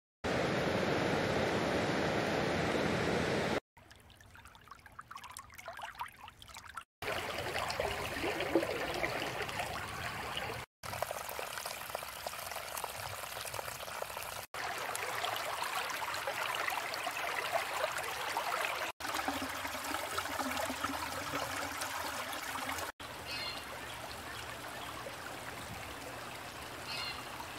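Field recordings of running water, a river and several forest streams, previewed one after another. Each clip is a few seconds of steady rushing or trickling and stops abruptly before the next begins. The last clip has a few faint bird chirps over the stream.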